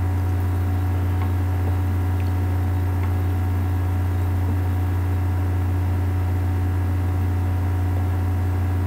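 A steady, unchanging low hum with a faint hiss over it, and a few faint small clicks.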